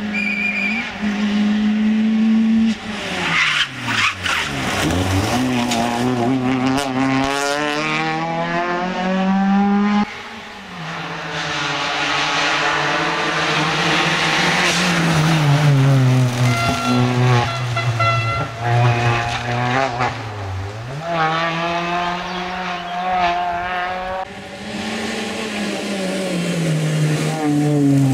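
Peugeot 206 rally car driven hard on a tarmac stage: the engine revs climb and fall through quick gear changes and lifts for corners, across several passes of the car.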